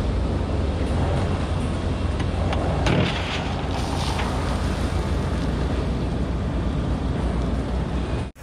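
Diesel dump truck engine running steadily. About three seconds in there is a brief rushing spill as the trailer's tailgate opens and the load of chert pours out onto the pile.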